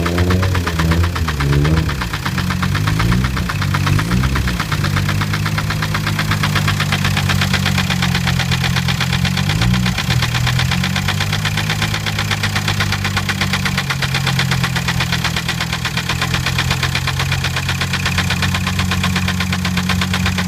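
2006 Jetta TDI's 1.9-litre four-cylinder turbodiesel idling with a rapid, even knocking clatter whose cause the owner is trying to find. The idle note wavers for the first few seconds, then settles.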